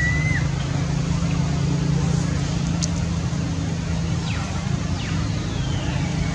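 A vehicle engine running steadily with a low hum. There is a short high chirp at the start, and a few faint high calls slide downward in the second half.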